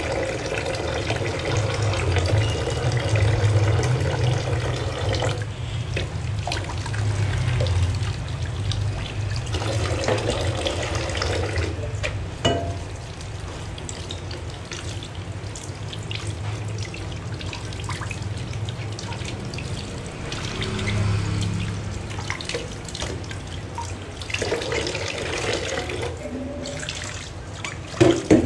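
Kitchen tap running into a stainless-steel sink while dishes are scrubbed with a sponge and rinsed under the stream. Dishes knock sharply against each other or the sink once about halfway through and again near the end.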